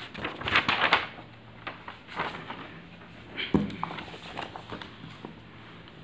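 Paper rustling as a sheet of writing paper is turned over and laid flat, with a few shorter rustles and one soft knock about three and a half seconds in.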